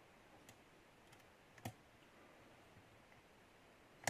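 Lock pick working the pin stack of a Yale pin-tumbler challenge lock under light tension: a few faint clicks, the loudest just before the end, as pin 5 sets and the core turns slightly.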